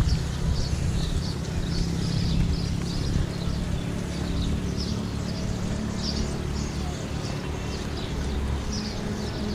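Outdoor ambience: a steady low hum under a run of short, high chirps repeating about two or three times a second.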